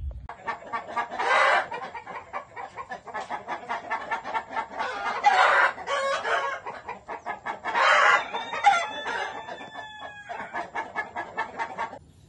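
Brahma chickens clucking rapidly, with a rooster crowing loudly a few times; the last crow, about eight seconds in, trails off falling in pitch.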